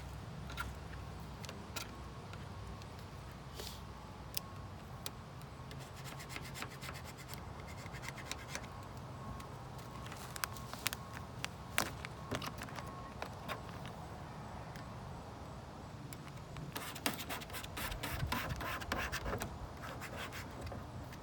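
Rubbing and scratching as a vinyl stripe decal is handled and smoothed onto a car's body panel, with scattered light ticks and crackles that grow busier near the end, over a steady low hum.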